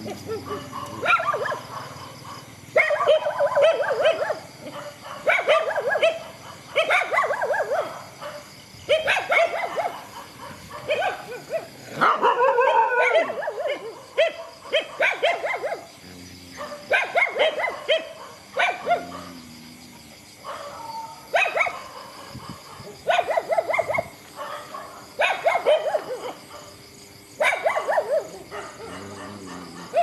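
Dogs barking in repeated bouts every second or two, with a longer, louder stretch about twelve seconds in.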